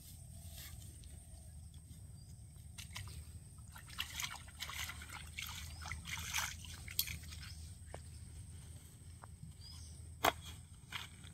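Water splashing and sloshing as hands swish a cloth in shallow pond water, in a busy run of strokes through the middle. A single sharp click near the end is the loudest sound.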